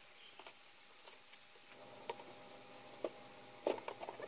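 Metal saw chain clinking and rattling as a new Oregon chain is fitted around a chainsaw's guide bar. There are scattered light clicks and a few sharper knocks, the loudest a little before the end.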